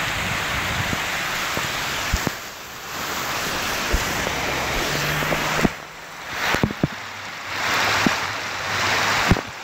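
Heavy rain and rushing water, a steady hiss that dips and swells again a few times, with scattered sharp knocks.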